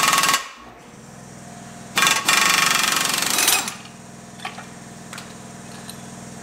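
Air impact wrench hammering the screw of a ball joint press, pressing a new ball joint into a steering knuckle: a short burst right at the start, then a longer burst of about a second and a half about two seconds in. A steady low hum runs underneath, with a few light metal clinks near the end.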